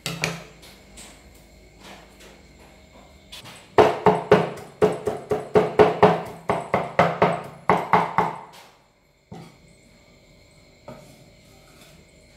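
Cleaver chopping garlic on a thick wooden chopping board: a fast run of sharp knocks, about four or five a second, for roughly five seconds, starting a few seconds in, after a single knock at the start.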